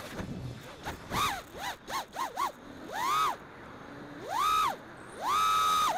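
FPV quadcopter's motors whining in throttle bursts, each rising and then falling in pitch: a quick run of short blips, then three longer pulls, the last held briefly at the top.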